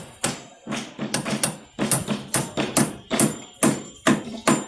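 Hammer driving nails into the timber sides of beam formwork, a sharp blow about every half second.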